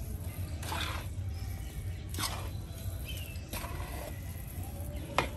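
A metal spoon scraping and stirring a thick mawa (khoa) laddu mixture against the sides of a metal kadhai, in separate strokes about once every second and a half, over a low steady rumble. The mixture is being cooked down until it stiffens.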